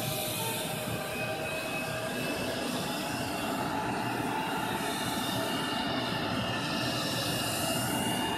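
Whine of the Embraer E175's GE CF34 turbofan engine spooling up during engine start, several steady whining tones rising slowly in pitch over a constant rushing hiss.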